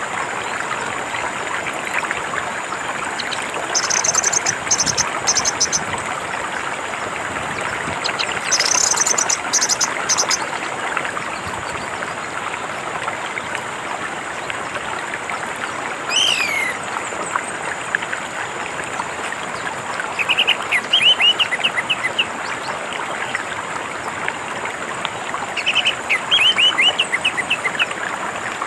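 Steady rush of flowing water with orange-headed thrush song over it: clusters of high chirps, a single falling call about halfway, and quick runs of repeated chirps in the last third.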